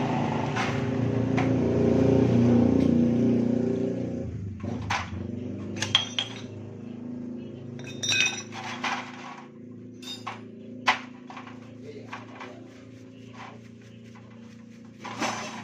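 A motor-like running noise swells and then dies away over the first four seconds. After that, a low steady hum remains under scattered sharp metallic clinks and taps: metal parts and tools being handled during work on a scooter's automatic clutch.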